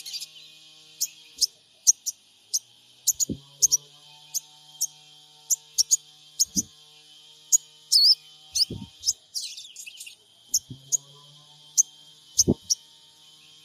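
Sogon bird giving short, sharp, high chirps, about two a second, with a brief twittering phrase about eight seconds in. These are calls used as a lure to get other sogon birds singing. A few low knocks sound among the chirps.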